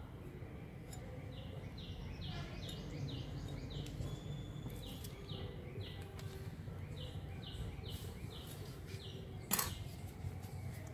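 A small bird chirping over and over in short, high notes, about one or two a second, over a low steady background rumble. One sharp click sounds near the end.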